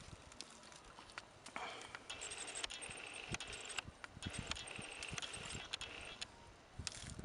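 Rustling and scattered light knocks and clicks of hands and feet working in leaf litter, in two longer rustling stretches with irregular taps between them.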